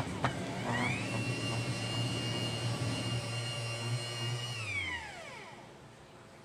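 Bread dough maker's kneading motor: after a click it spins up with a rising whine, runs with a steady high whine over a low hum, then winds down with a falling whine and stops about five seconds in.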